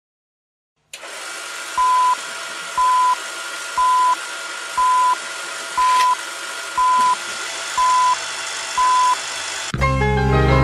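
Film-countdown leader sound effect: a steady hiss of old film with a short, high beep once a second, eight beeps in all. Music comes in near the end.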